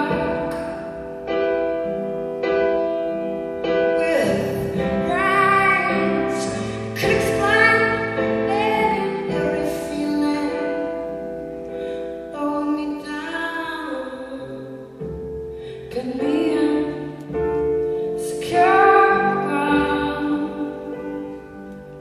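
A woman singing a slow ballad live while accompanying herself on piano, sung phrases drawn out over long held piano chords. The music grows quieter near the end.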